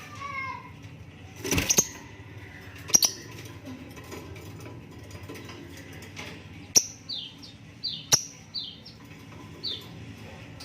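Lovebirds making short, high, falling chirps: a few near the start and a run of about six in the second half. Several sharp clicks or knocks stand out louder, about a second and a half in, at three seconds, and twice more in the second half.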